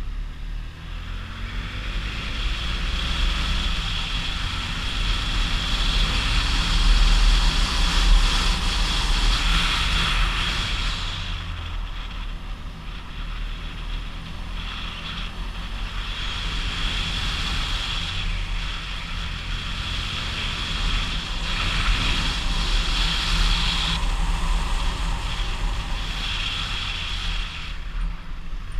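Engine of the vehicle carrying the camera, running steadily as it climbs, with wind rushing over the camera that swells and fades.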